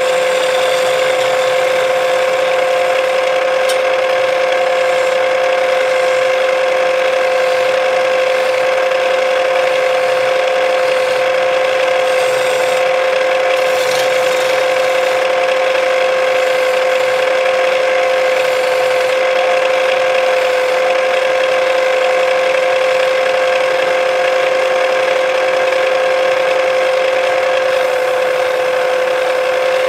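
Wood lathe running with a steady whine at one unchanging pitch, while a hand-held chisel shaves the spinning wooden spindle.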